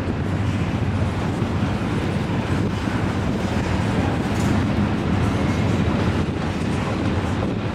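Double-stack intermodal freight cars rolling slowly past: a steady rumble of wheels on the rails.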